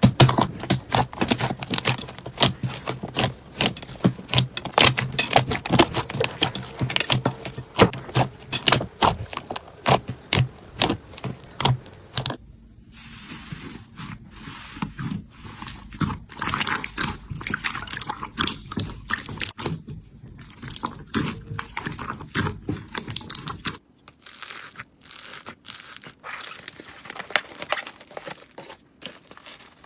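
Hands squeezing, poking and stretching slime: a dense run of crackling, popping clicks. The sound changes abruptly about twelve seconds in and again near twenty-four seconds, where it becomes quieter.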